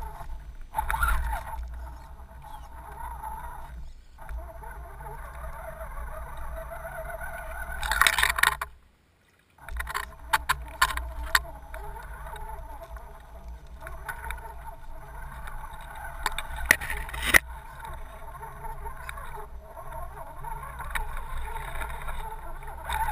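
Electric motor and gears of an Axial SCX10 RC crawler whining steadily as it drives, heard from a camera mounted on the truck. Scattered sharp knocks come through the middle stretch. All sound drops out briefly about nine seconds in.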